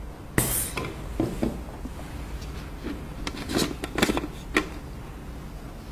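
Light handling sounds of a plastic mug and its mold: a brief scrape, then a few separate clicks and taps over a low steady hum.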